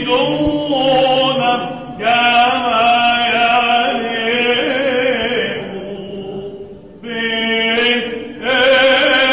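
Byzantine Orthodox chant: a male chanter sings long melismatic held notes over a steady lower drone. The voice fades briefly about six seconds in, then re-enters strongly.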